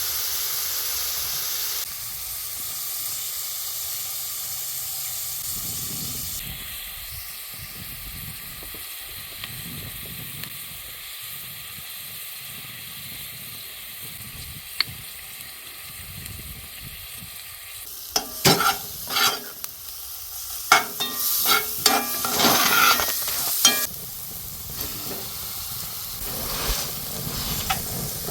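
Food sizzling in a frying pan, with a utensil stirring and scraping against the pan in a run of sharp clicks for several seconds past the middle.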